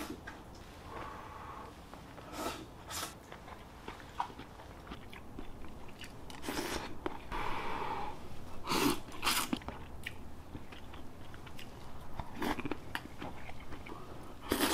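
A person eating hot instant ramen noodles: short slurps and chewing at irregular intervals, with a longer breathy stretch about seven seconds in as he blows on a lift of noodles to cool them.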